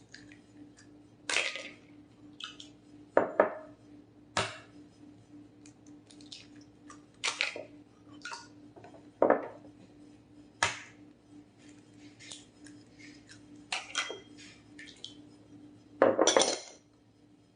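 Eggs being tapped and cracked against the edge of a mixing bowl, with clinks of dishes: about a dozen separate sharp taps spread out, some in quick pairs, over a faint steady hum.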